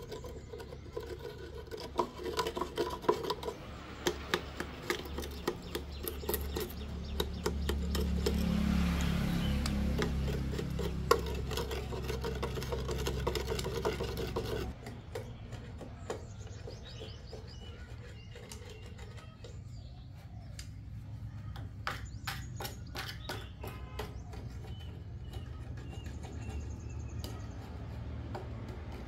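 Small metal scraper chipping and scraping leftover concrete out of the holes of a metal post mold: a run of irregular clicks and scrapes. A steady low hum runs underneath and cuts off about halfway, and faint bird chirps come in later.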